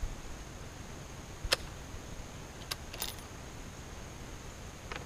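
Light metallic clicks and clinks from handling the action of a Tikka T3X bolt-action rifle: a sharper click about one and a half seconds in, a quick cluster about three seconds in, and a faint one near the end.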